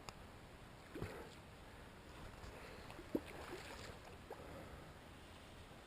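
Faint lapping water with a few soft clicks and knocks, about one second in, a little after three seconds and around four seconds.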